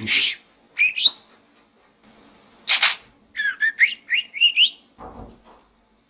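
Budgerigar chirping: two short rising chirps about a second in, a brief scratchy call, then a quick run of about six rising chirps.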